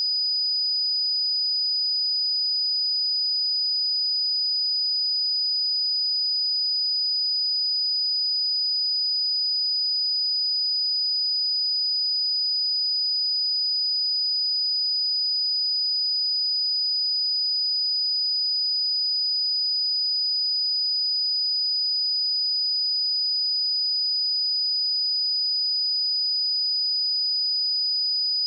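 A pure 4965 Hz sine-wave test tone, a single steady high-pitched whistle held at constant level.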